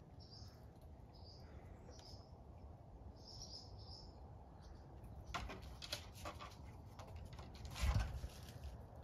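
Small birds chirping in short, high calls during the first four seconds. From about five seconds in come brief scuffling and scraping noises, the loudest a short scuff with a low thud just before eight seconds.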